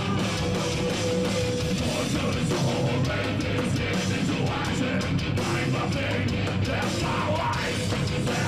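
Heavy metal band playing live: distorted electric guitars chugging a dense riff over fast, steady drums.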